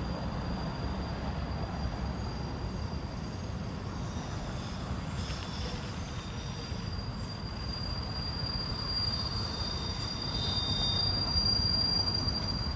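Freight train of container wagons passing, its wheels squealing in thin, steady, high-pitched tones. Underneath is the low rumble of cars going round the roundabout.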